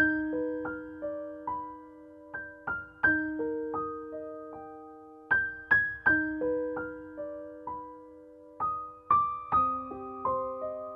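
Background piano music: a slow melody of single notes, each struck and left to ring out.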